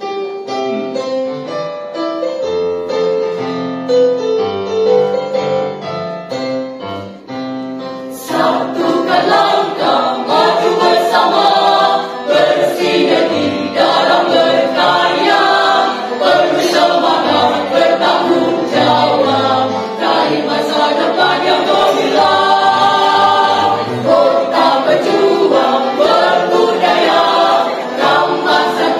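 Mixed choir of men's and women's voices singing a march song. The sound becomes fuller and louder about eight seconds in.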